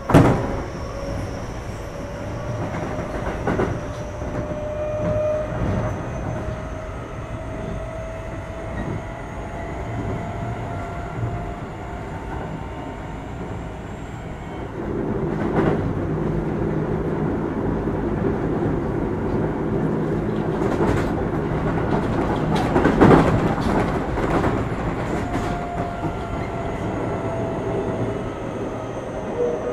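Onboard running sound of a Keio 8000 series electric train with Hitachi SiC VVVF inverters: wheels rumbling on the rails under a faint traction-motor whine that slowly glides in pitch. There is a sharp knock at the start and a few rail-joint clacks, and the running rumble grows louder about halfway through.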